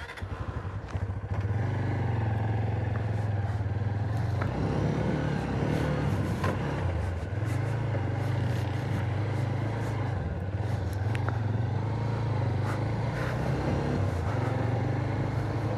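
Motorcycle engine running as the bike pulls away, growing louder about a second in, then carrying it steadily over rough ground, with scattered clicks and rattles.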